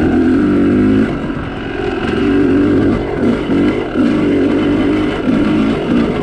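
Dirt bike engine running hard on a trail, its pitch rising and falling over and over with the throttle.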